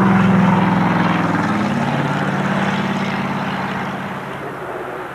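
An engine running, its pitch dropping a little under two seconds in, then holding steady as it fades somewhat toward the end.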